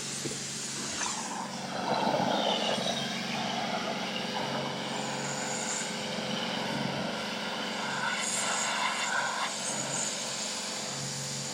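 A pressure washer running: a steady motor hum under the hiss of the water spray, which gets louder about two seconds in.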